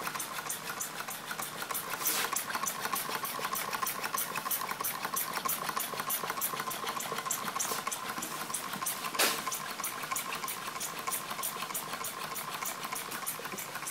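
Small homemade Stirling engine running, its linkages ticking evenly several times a second over a soft hiss of gas escaping. Two louder single knocks come about two seconds in and again near nine seconds. It keeps turning on heat stored in its metal, with no flame applied.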